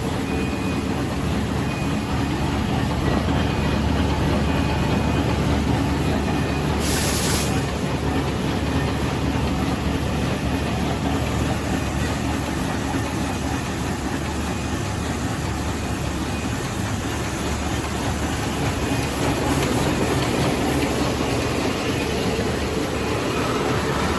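Automatic facial tissue packing machine running, a steady, even mechanical noise with a low hum. A brief hiss sounds about seven seconds in.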